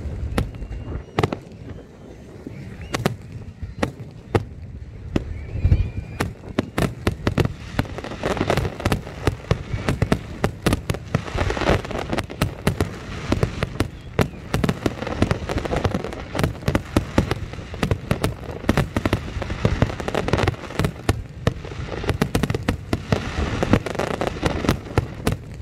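Fireworks display at close range: aerial shells bursting with sharp bangs and crackling. The bangs are spaced out at first, then from about seven seconds in they come thick and fast in a continuous barrage.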